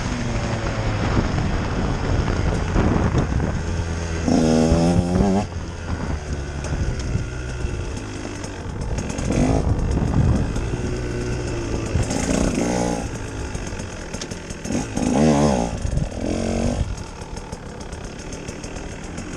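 2018 Husqvarna TE 150's two-stroke single-cylinder engine being ridden, rising sharply in pitch in about four bursts of throttle and dropping back to a lower, steady run in between.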